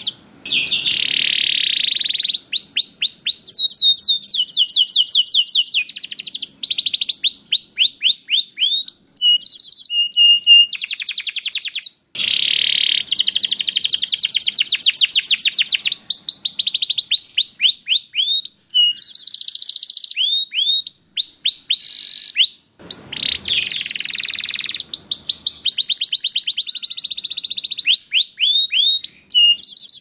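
Domestic canary singing a long, loud song of fast trills and rapid runs of repeated sweeping notes. The song breaks off briefly about a second in, near the middle and about three-quarters through.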